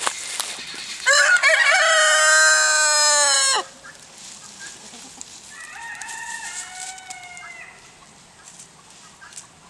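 Rooster crowing once, loud and long, starting about a second in and ending on a falling note. A fainter, shorter call follows around six seconds in.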